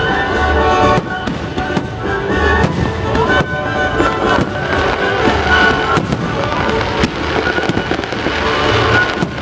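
Fireworks display: aerial shells bursting in a string of sharp bangs, about one every second or so, with music playing at the same time.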